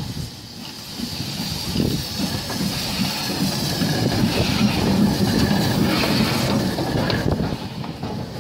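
LNER B1 4-6-0 steam locomotive No. 1264 rolling slowly past close by, its wheels and motion rumbling and clanking over the rail joints. The sound builds from about a second in and is loudest midway as the engine goes by.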